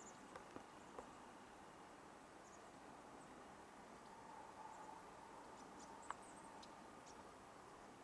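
Near silence with faint background hiss, broken by scattered faint, very short high chip notes of small birds and a few soft clicks in the first second and one about six seconds in.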